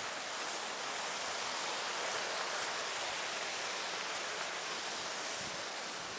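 Steady hiss of wind blowing over the microphone and through tall grass, with the low rumble largely missing.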